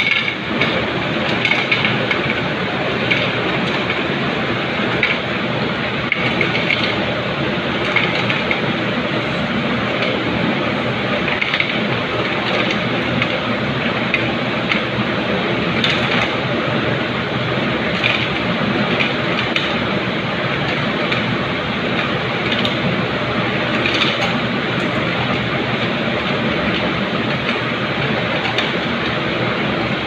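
Steady factory machinery noise, with faint short clicks every second or two.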